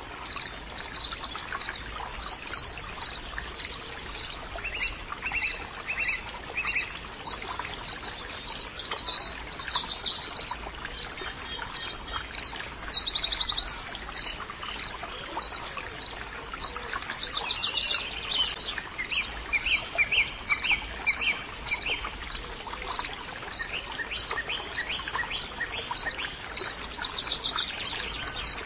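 Birds singing over running water, with a short high chirp repeating about twice a second throughout and bursts of varied song and trills now and then.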